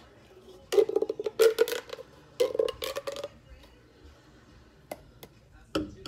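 Plastic pop tube fidget toy being stretched and squashed by hand: three bursts of rapid crackling clicks as its ribbed sections snap open and shut, then a couple of single clicks near the end.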